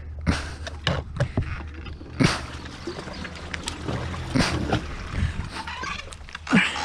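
Handling noise in a small fishing boat while a hooked bass is fought in thick lily pads: several sharp knocks and short splashy, rustling bursts over a steady low hum.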